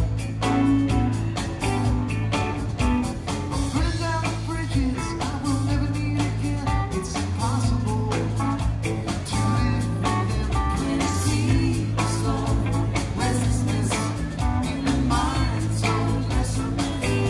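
Rock music with guitar, a steady drum beat and a singing voice.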